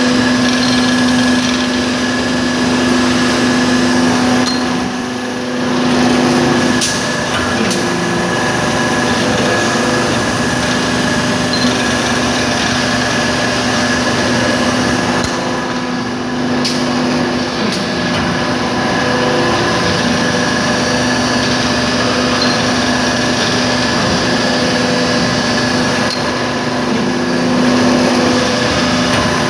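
400-ton H-frame hydraulic cold forging press running: steady machine noise with a hum from the hydraulic pump, dipping briefly about every eleven seconds, with a couple of sharp clicks near the start.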